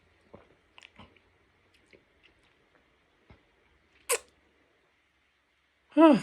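Quiet mouth and handling sounds of someone tasting an energy drink: faint small clicks, one sharp click about four seconds in, then a short vocal 'ahh' falling in pitch at the end.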